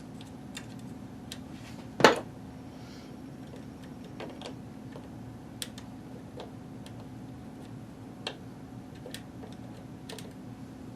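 Scattered small clicks and taps of tools and parts being handled while a router's switch is worked on, with one louder knock about two seconds in, over a steady low hum.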